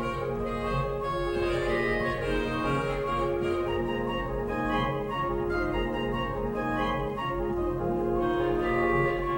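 57-rank Noack pipe organ playing: sustained deep pedal notes under a continually shifting pattern of chords.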